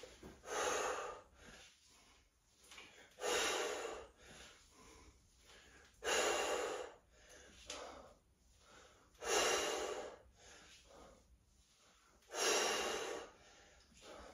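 A person's forceful exhalations, five hard breaths out about three seconds apart, one with each rep of a dumbbell squat press.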